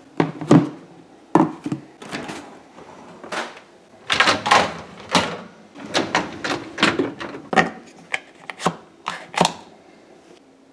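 Plastic washer-fluid reservoir and coolant overflow tank being set into a dishwasher's wire rack: an irregular string of sharp clunks and rattles, plastic knocking on the metal rack as it is handled and shifted.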